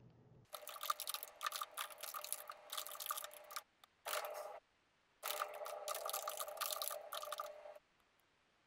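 Fast typing on a computer keyboard in bursts: about three seconds of keystrokes, a brief half-second run, then another two and a half seconds, with short pauses between.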